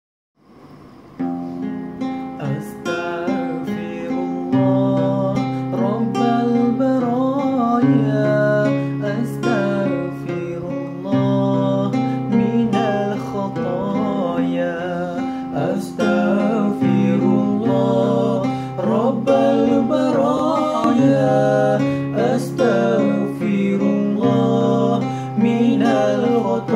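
Acoustic guitar, strummed and picked, accompanying two male voices singing a Malay zikir (devotional) song. The guitar comes in about a second in.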